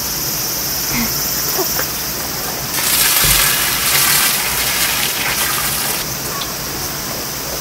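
Water gushing from a portable camping shower water container for about three seconds, starting near three seconds in, over a steady background hiss.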